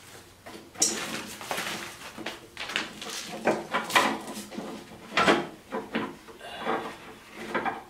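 Aluminium frame of a PowerMate L-1 stair-climbing hand truck being slid apart and handled: irregular metal knocks and scrapes, the loudest about four and five seconds in.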